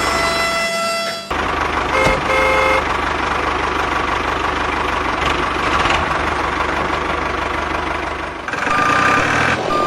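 Tractor engine running steadily, with two short horn toots about two seconds in and a held horn note that cuts off about a second in.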